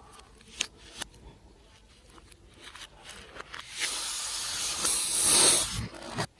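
Two small clicks, then about four seconds in a hiss that builds for about two seconds and stops abruptly.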